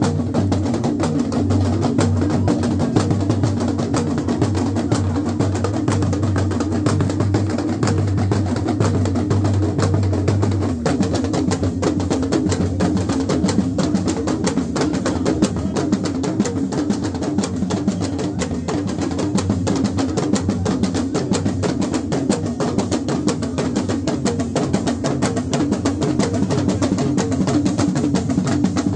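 Music with drums and percussion.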